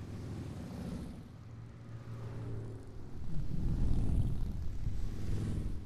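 A procession of large cruiser and touring motorcycles riding past one after another, their engines running with a low pitched sound. It gets louder from about three seconds in as the next bikes draw near.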